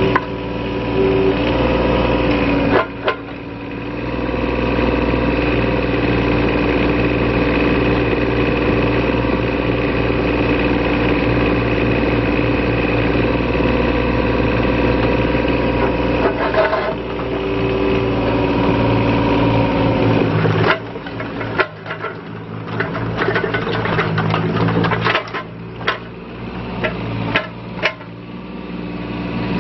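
Yanmar B12 mini excavator's small diesel engine running steadily under hydraulic load as the boom and bucket are worked. From about two-thirds of the way in, the sound turns uneven, with a run of sharp metallic clanks and knocks.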